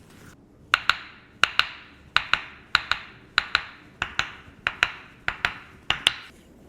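Rhythmic percussive tapping on a patient's body during a chiropractic treatment: sharp double knocks, two strikes in quick succession, repeated about nine times at an even pace of a little more than one pair per second.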